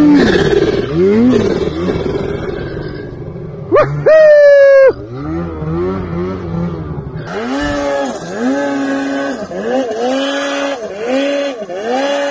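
Snowmobile engines revving hard in deep powder, the pitch rising and falling with the throttle. About four seconds in there is a brief, very loud high-pitched rise that holds for about a second. From about seven seconds another sled revs in quick repeated blips.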